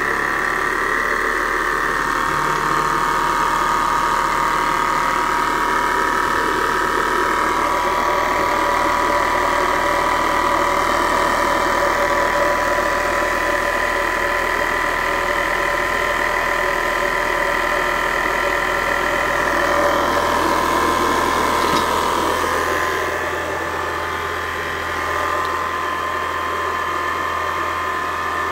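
Small model twin-cylinder steam engine running fast on live steam at 1 bar: a rapid, even mechanical clatter with a steady whine over it, a little quieter near the end.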